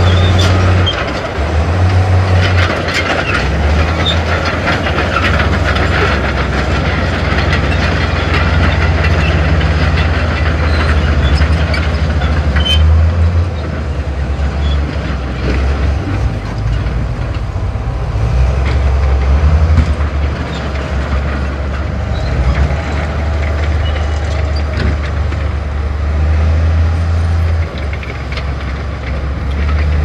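Heavy diesel engine of earthmoving machinery running, its low drone stepping up and down in pitch, with clanking and rattling through roughly the first half.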